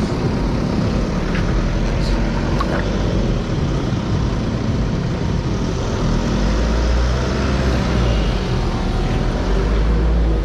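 Steady motor-vehicle engine and road noise, a low rumble that grows deeper and heavier about six seconds in. A few light knocks come around two seconds in.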